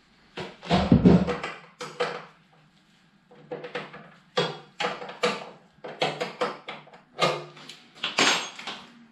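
Irregular clunks, knocks and rattles of a pannier frame being worked with a hand tool and a hard pannier case being lifted and hung on a motorcycle's mounting frame; the loudest knock comes about a second in and another near the end.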